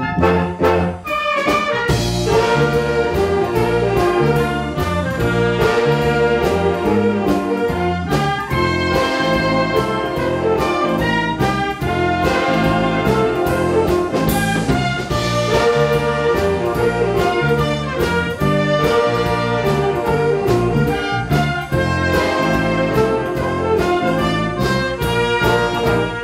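A wind orchestra playing a medley of Korean popular songs: clarinets, saxophones and brass together over a steady beat.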